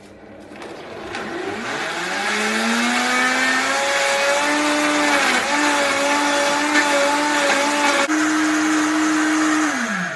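Optimum 9200A high-speed blender motor spinning up with a rising whine over the first few seconds, then running steadily at full speed through a smoothie of frozen spinach, carrot and fruit. It winds down and stops near the end as its 45-second timed program finishes.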